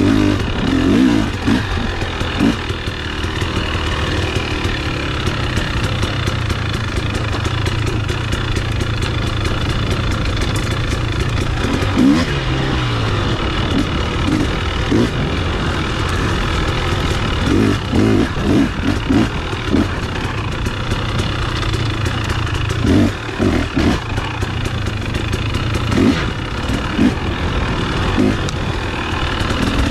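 KTM two-stroke dirt bike engine running under way on a trail ride, the revs rising and falling with the throttle and dropping about twelve seconds in, with low thumps now and then.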